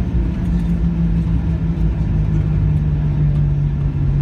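Cabin noise of a Boeing 737-800 rolling out on the runway after touchdown: a loud, steady rumble with a low hum that slowly drops in pitch.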